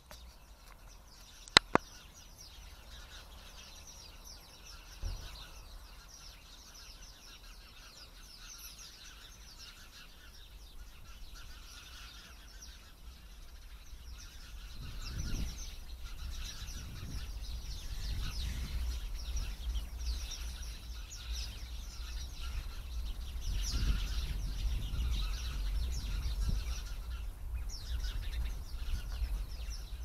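A flock of small birds hidden in a bush, chirping and twittering together without a break. There are two sharp clicks about a second and a half in, and a low rumble builds from about halfway.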